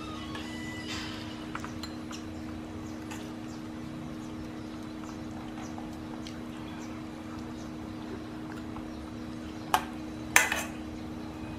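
Metal ladle stirring a thick soup in a stainless steel pot, with faint scrapes and ticks and two sharp clinks of the ladle against the pot near the end, over a steady low hum.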